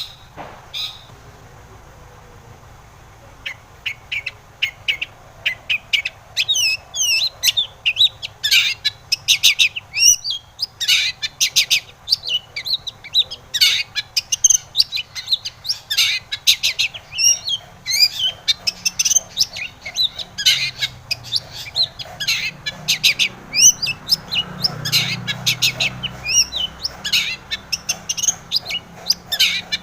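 Long-tailed shrike (cendet) singing a fast, chattering song of short, high, swooping notes, strung together almost without pause; it starts a few seconds in.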